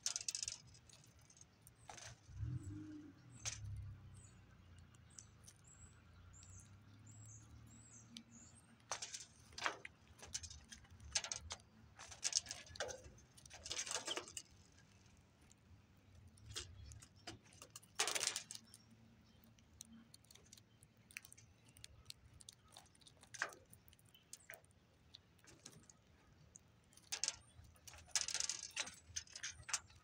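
Seeds rattling, clicking and crunching as a small flock of American goldfinches peck and rummage through a tray of mixed seed close to the microphone, in irregular bursts. A quick run of faint high chirps comes about six to nine seconds in.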